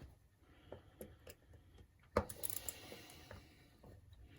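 A few light clicks and taps from handling the RC car and hand tools, with one sharper click about two seconds in and a faint rustle after it.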